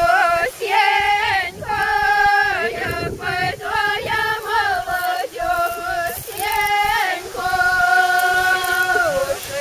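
A folk ensemble singing a traditional Podlasie spring ritual song together in open, full voices, a melody of short phrases, with one long held note near the end.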